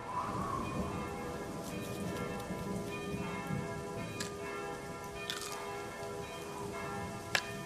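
Church bells ringing, many overlapping tones sustaining over a noisy wash, with a few sharp clicks, the sharpest near the end.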